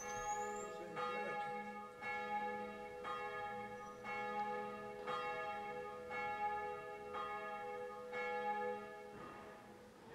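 Church bells of Gothenburg's German Church (Christinae Church) ringing, with fresh strikes about twice a second over overlapping ringing tones, dying away near the end.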